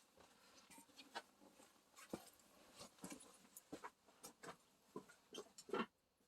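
Near silence with faint, irregular clicks, taps and light rustles: small handling sounds of food being prepared.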